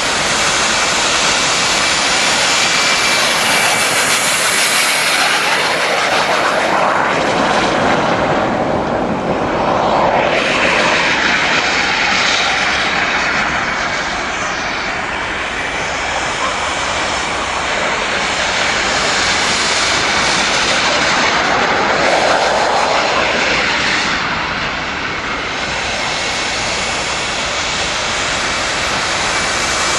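Wren model gas-turbine jet in a radio-controlled Bluebird jet boat, running flat out as the boat laps the water: a continuous jet whine and rush that swells and fades as the boat passes, most clearly about a third of the way in and again later on.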